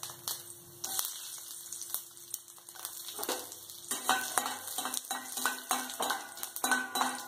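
Tempering: mustard seeds and dried red chillies sizzling and crackling in hot oil in a steel kadai. From about four seconds in, a metal spoon stirs and clinks repeatedly against the pan.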